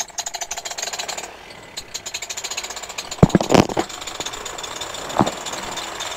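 Microlight trike engine turning the propeller over and firing unevenly in a rapid train of beats. The beats break off about a second in and resume, with loud coughs about three seconds in and again near five seconds. The engine struggles to catch because it is flooded.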